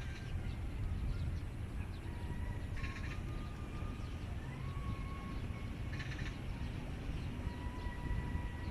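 Waterfront outdoor ambience: a steady low rumble with faint thin tones, and two short harsh bird calls about three and six seconds in.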